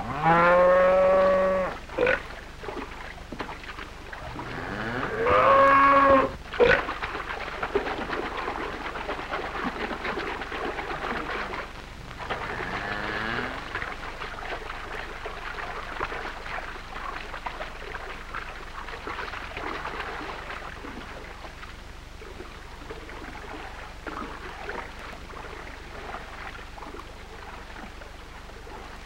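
A cow mooing three times: two loud moos in the first seven seconds, the second rising in pitch, and a fainter one about twelve seconds in, with a sharp knock just after the second moo, all over a steady hiss.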